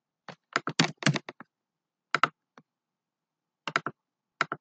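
Typing on a computer keyboard: a quick run of about eight keystrokes in the first second and a half, then a few short clusters of clicks.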